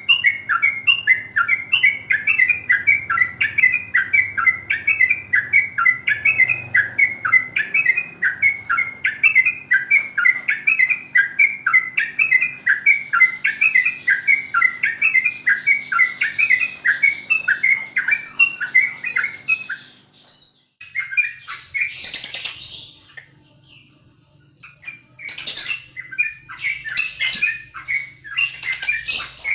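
Yellow-vented bulbul (trucukan) singing a long, rapid 'ropel' run of repeated falling notes, about four a second, for about twenty seconds. After a brief pause it carries on with shorter, choppier phrases.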